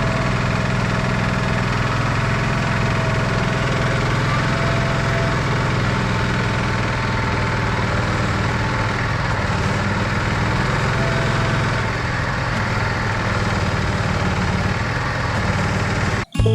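Heavy logging machine's engine running steadily at idle, a low even hum under a wide wash of mechanical noise. It cuts off abruptly near the end.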